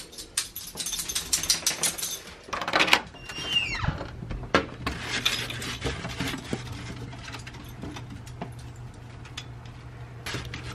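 Small dogs' claws clicking and collar tags jingling on a tile floor, then a door opening with a brief falling squeak about three and a half seconds in, followed by scattered lighter clicks over a faint steady hum.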